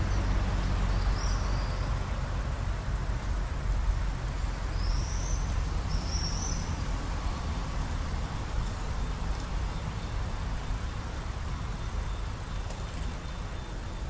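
Outdoor background of a steady low rumble, with a few short high bird chirps about a second in and again around five to six seconds in.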